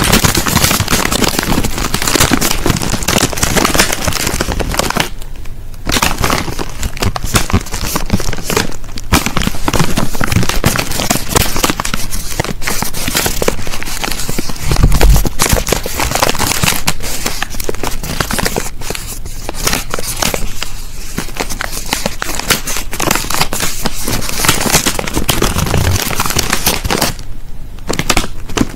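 Plastic crisp packet being crinkled and rustled in a dense, continuous crackle that pauses briefly twice, with a dull low thump about halfway through.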